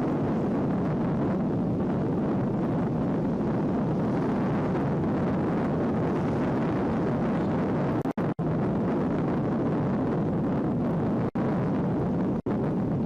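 Steady rumbling wind noise on the microphone of a boat under way, cutting out to silence for brief moments four times in the second half, where the recording is garbled.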